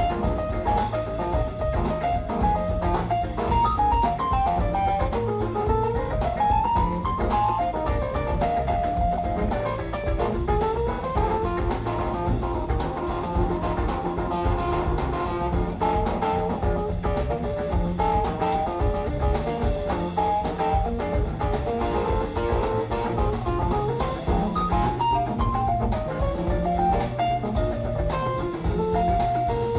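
Instrumental jazz-blues music with a lead guitar melody over bass and drum kit.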